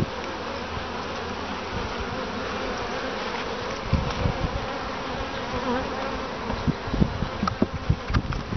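Honeybees buzzing steadily in a dense hum around an opened long frame hive, with a few low thumps from about halfway in.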